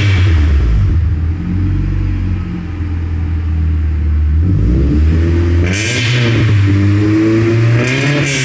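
Honda Prelude's four-cylinder engine running through a newly fitted Flowmaster muffler, idling low with two throttle blips, about halfway and near the end, whose pitch rises and falls. The owner finds it as terrible and as loud as the old exhaust.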